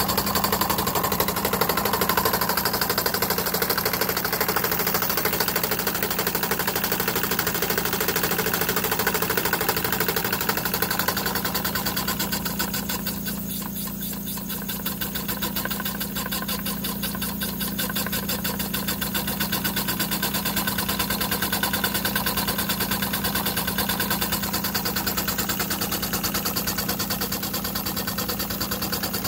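Toy model steam engine running steadily: a fast, even mechanical clatter over a steady hum, a little quieter for a moment near the middle.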